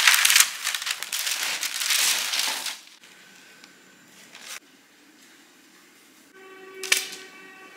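Parchment paper rustling and crinkling as it is peeled off a baked sponge cake sheet, for about three seconds. Then it goes quiet, apart from a brief pitched squeak with a click near the end.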